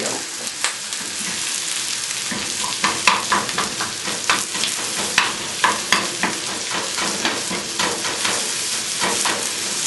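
Chopped onions sizzling in a little oil in a frying pan on a full gas flame, with repeated clicks and scrapes of a wooden spoon as they are stirred and broken up.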